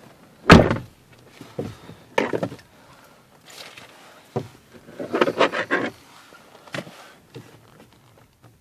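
Peugeot 308 door handle and its decorative trim being worked by hand: a sharp knock about half a second in, then several shorter knocks and creaks, with a longer rattling creak about five seconds in. The creak comes from the decorative trim pieces on the door handles.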